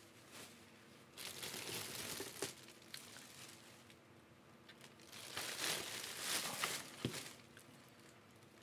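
Plastic wrap crinkling as it is handled around a lamp, in two spells: one about a second in and another from about five seconds in. There is a single sharp knock near the end.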